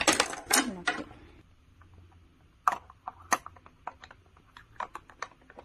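Plastic filter cartridge of a Kangen water ioniser being twisted in its housing. It starts with a loud rubbing, scraping rustle in the first second, then gives scattered sharp plastic clicks as it turns and seats.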